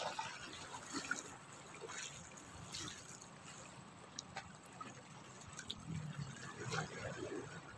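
Small sea waves lapping against the rocks of a breakwater, with irregular small splashes.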